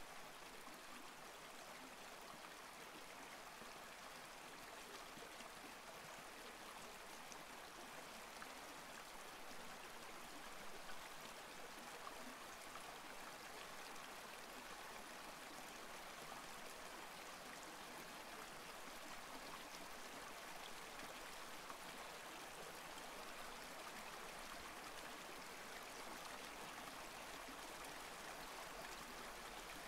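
Faint, steady hiss of background noise, like rushing water, with no distinct events.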